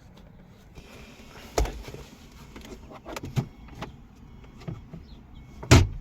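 A series of separate clunks and knocks from a car being handled. The loudest comes near the end.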